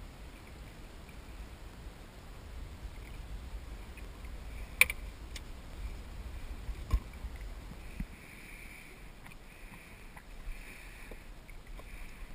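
Water lapping and splashing around a kayak hull, over a low rumble, with a few sharp knocks of handled gear; the loudest knock comes about five seconds in.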